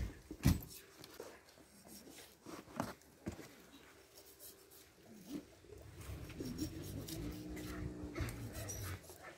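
Knocks and thuds as a half pig carcass is turned and shifted on a wooden table. From about six seconds in, a low steady whine holds until near the end.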